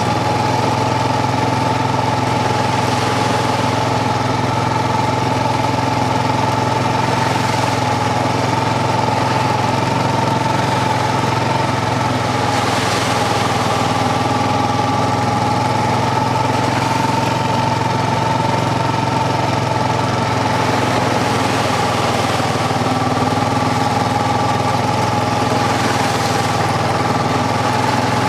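ATV engine running steadily at an even pitch while riding, with no revving or changes in speed.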